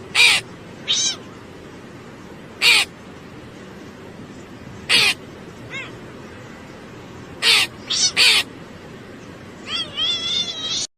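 A cat meowing in short, high-pitched cries at irregular intervals, about nine in all, ending with a longer wavering meow near the end.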